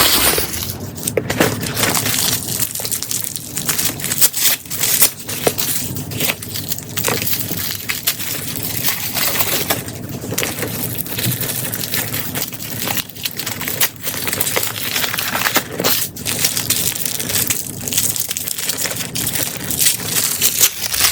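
Protective packing material being pulled off and out of a new tote bag: continuous irregular crinkling and crackling with frequent sharp rustles.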